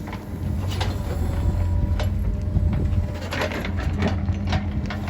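Cat 432F2 backhoe loader's diesel engine running steadily, with scattered knocks over it, a cluster of them about three and a half seconds in.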